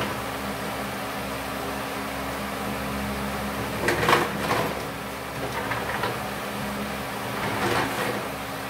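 Collapsible wooden workbench being folded: its hinged side panels swing and knock against the frame, loudest in a short clatter about four seconds in, with smaller knocks later, over a steady hum.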